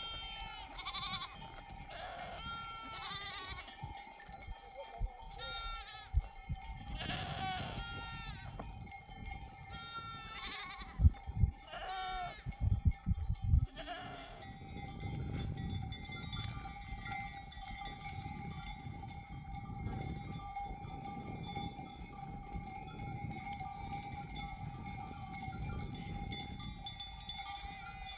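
A flock of sheep bleating over and over, with the steady jangle of sheep bells. A few loud low bumps come about halfway through. After that the bleating stops and only the bells and the moving flock go on.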